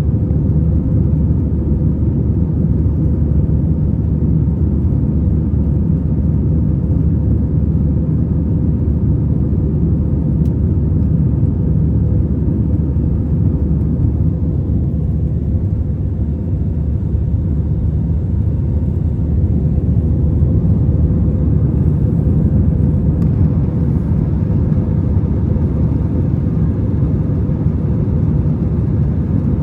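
Airbus A321 airliner cabin noise: a steady low rumble of the jet engines and rushing air, with a faint steady hum.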